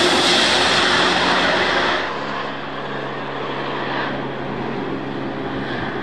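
Corvette C8 ZR1 prototype's twin-turbo V8 at speed: a loud pass-by with heavy tyre and wind rush and the engine note falling away, then, after a sudden change about two seconds in, a quieter, steady engine note as the car approaches.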